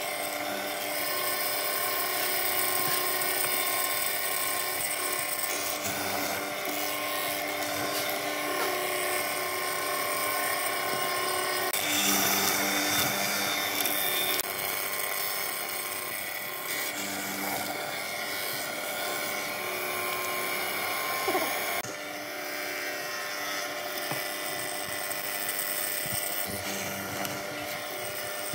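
Band saw running with a steady high whine as its blade cuts slots into a hardwood block. The sound changes abruptly about twelve seconds in and again about twenty-two seconds in.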